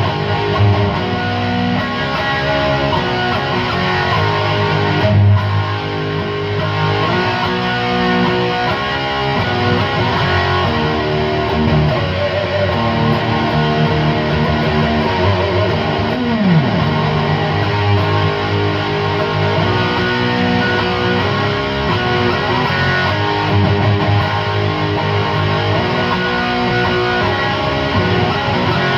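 Electric guitar played through a Chupacabra 100 amplifier, its master turned up and its clipping diodes engaged for a driven, clipped tone, in a continuous run of chords and riffs.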